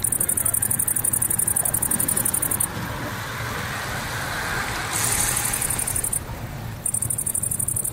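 Insects stridulating in the roadside grass: a high, rapidly pulsing buzz that stops about a third of the way in, returns for about a second past the middle and again near the end, over a low steady rumble.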